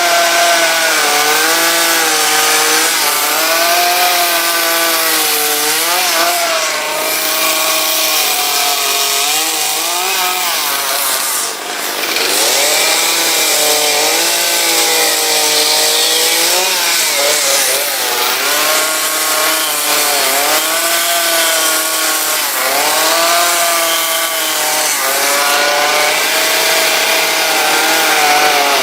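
Two-stroke gasoline chainsaw cutting wood in a carving, its engine pitch rising and dipping over and over as the throttle and load change, with a brief dip in level about eleven seconds in.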